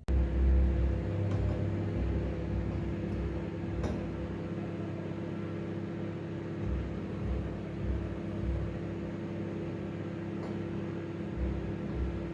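Microwave oven running with a steady hum, heating a covered bowl of popcorn kernels, with a couple of faint clicks.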